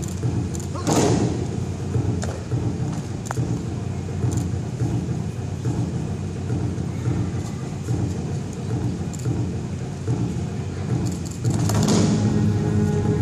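Bodies of aikido ukes hitting foam mats in breakfalls as they are thrown, two thuds about a second in and near the end, over a steady low rumble of a large hall.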